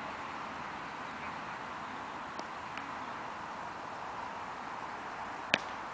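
Steady outdoor background hiss, then a single sharp crack near the end: a cricket bat striking the ball.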